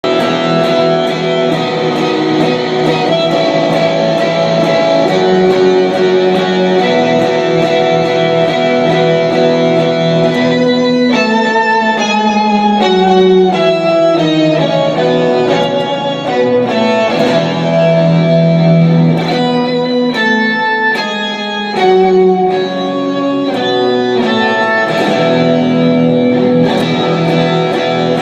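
Guitar being sound-checked: held chords ring for about ten seconds, then single picked notes run up and down the neck.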